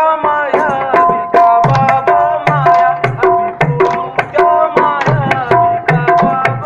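Qawwali music: a dholak hand drum playing a quick, busy beat under long held melody notes.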